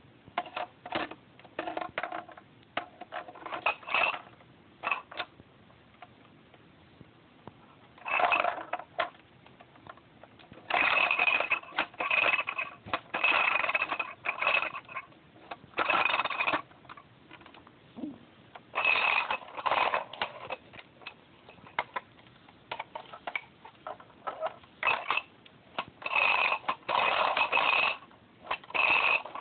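Hard plastic toy hippo rattling and clattering in irregular bursts of a second or two as it is shaken and knocked about, a flashlight loose inside it.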